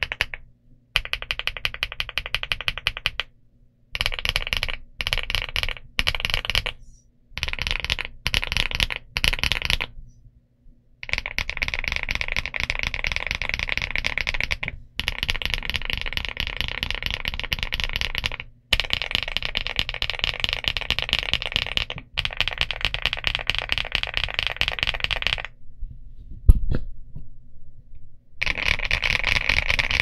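ElecFox Inky75 aluminium 75% mechanical keyboard with Matcha Buttermilk switches and DS PBT Cherry-profile keycaps, typed on fast in runs of rapid keystrokes broken by short pauses. There is one heavier thump a little over three-quarters of the way through.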